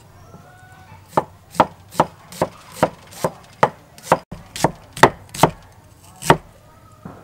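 Cleaver slicing an onion on a round wooden chopping board: about a dozen sharp, evenly paced chops, a little over two a second, starting about a second in and stopping just after six seconds.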